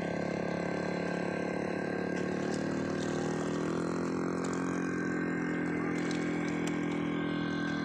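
Outboard motor of a small wooden longboat running steadily as it passes, an even drone whose pitch sinks slightly over the first few seconds.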